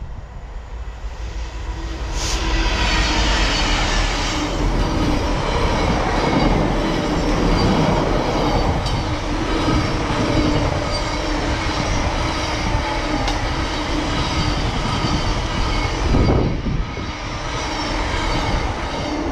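A GB Railfreight freight train of covered hopper wagons passing close by. The sound swells about two seconds in as the diesel locomotive comes level, then holds as a long, steady rumble of wagon wheels rolling on the rails, with a brief louder burst near the end.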